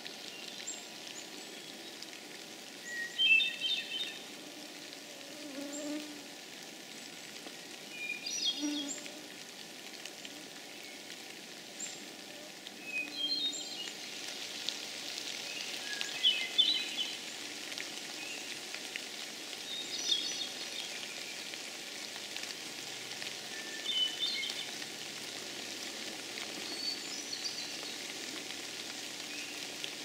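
Hermit thrush singing: about seven flute-like phrases, one every three to five seconds. Each opens on a lower note and runs up into a quick cluster of higher notes, at a different pitch from phrase to phrase, over a steady background hiss.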